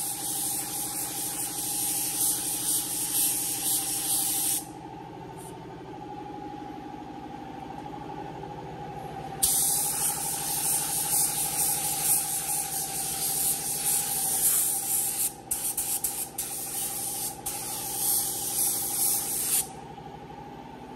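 Air-fed paint spray gun hissing in two long passes: one of about four and a half seconds at the start, then about ten seconds from about nine seconds in, with a couple of short breaks near the end. Box fans run with a steady hum underneath.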